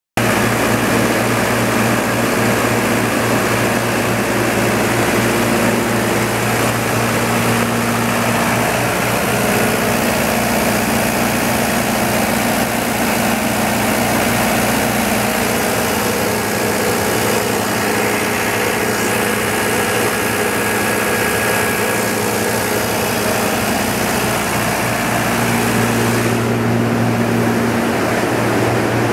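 Kohler diesel generator set running steadily, its John Deere 4045 four-cylinder turbo-diesel engine held at a constant 1800 rpm with an even low hum. The sound dulls slightly near the end.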